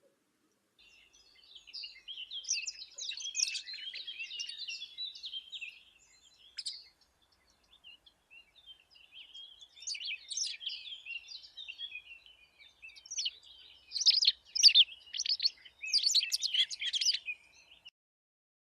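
A songbird singing in three long bouts of rapid, varied chirps and twitters, the last bout near the end the loudest.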